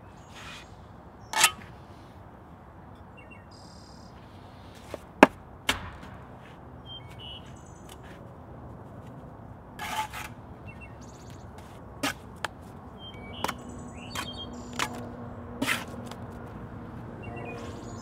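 Bricklaying with a steel trowel and mortar: a series of sharp knocks, taps and scrapes at irregular intervals as mortar is worked and bricks are handled, the sharpest knock about five seconds in. Small birds chirp faintly in the background.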